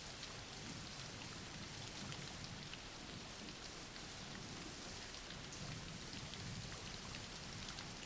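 Soft, steady rain falling on a surface, a constant gentle hiss with faint scattered drops.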